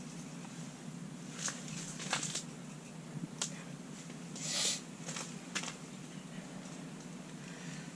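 A handful of short scuffs and crunches of people moving about on snow-covered ice, the longest and loudest about halfway through, over a steady low hum.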